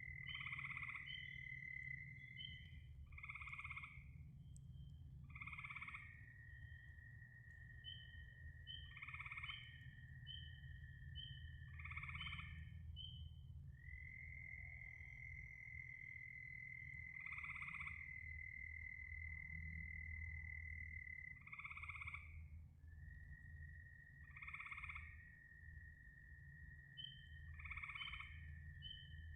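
Frogs calling: short croaks repeat every two to four seconds over a long, steady, high trill that holds for several seconds at a time with short breaks. Faint rapid chirps and a low steady hum run underneath.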